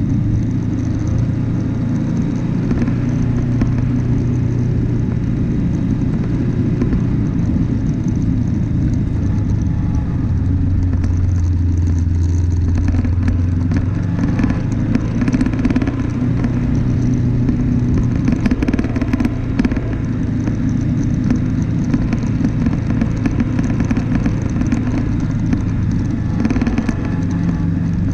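Off-road vehicle driving with its engine running steadily at a low, even pitch, while the body rattles and clatters over rough ground. The clatter is heavier from about halfway through and again near the end.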